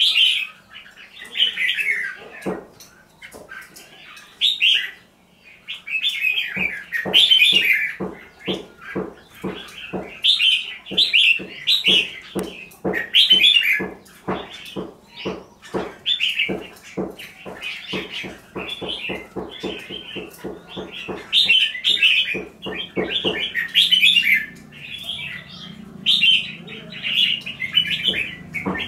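Caged red-whiskered bulbuls singing loud, short warbled phrases one after another, the song of birds sparring in a challenge display. Through the middle runs a steady series of sharp taps, about three a second.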